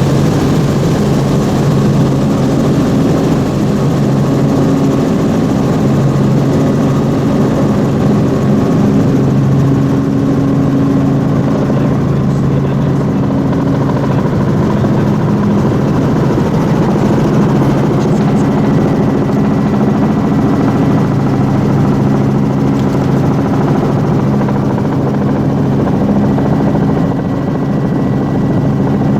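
Helicopter in flight, heard from aboard: its engine and rotor keep up a loud, steady drone with an even low hum.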